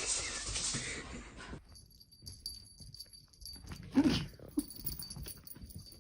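A dog gives a brief vocal sound about four seconds in. Before it, a steady hiss cuts off sharply about a second and a half in.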